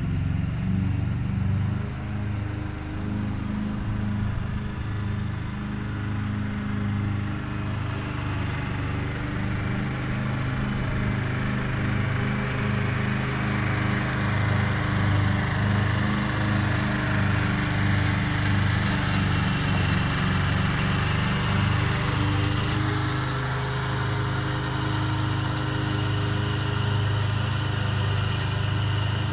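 Ride-on lawn mower's small engine running steadily, its note shifting slightly about three-quarters of the way through.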